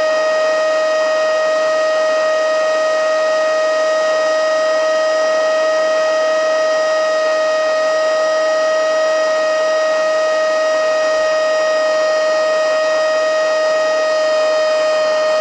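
XCQ-508 mini handheld blowing/sucking vacuum cleaner running at full power: a loud, steady high-pitched motor whine that does not change in pitch, over the hiss of rushing air.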